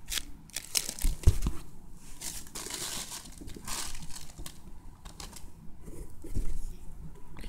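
Clear plastic packaging bags crinkling and rustling as bagged squishy toys are handled, with a few dull knocks, the loudest just over a second in.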